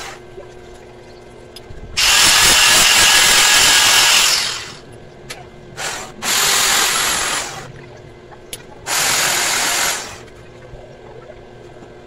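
Electric hand drill run in three short bursts: about two seconds in for a couple of seconds, again a little after the middle, and once more near the end. Each burst winds down as the trigger is released.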